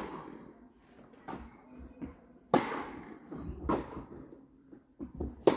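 Tennis rally on an indoor hard court: the ball struck by rackets and bouncing, a sharp pock about every second, each echoing in the large hall. The loudest hits come about two and a half seconds in and near the end.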